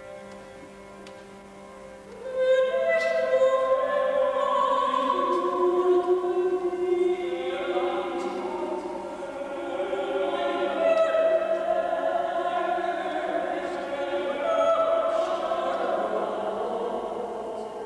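Soprano and mezzo-soprano singing long held notes together in slow, overlapping lines, entering about two seconds in over a faint sustained tone.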